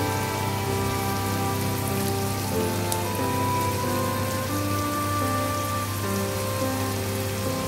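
Ground beef sizzling in a pot on the stove, a steady crackling hiss. Background music with held notes plays over it.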